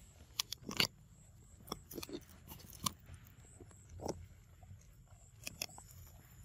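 A macaque biting and chewing at a snack held in a plastic packet: scattered crunches and crinkly clicks, irregular, the loudest just under a second in.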